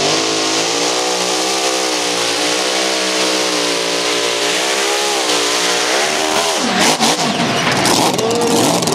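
Mini rod pulling tractor's engine running flat out under load as it drags the weight-transfer sled, its pitch wavering as the rpm rises and falls. About six and a half seconds in, the engine note drops away with a few sharp pops as the run ends.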